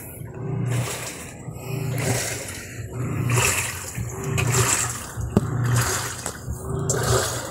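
Samsung automatic washing machine agitating a load of water: the motor hums in strokes about once a second as the drum reverses, and each stroke sloshes and swishes the water in the tub.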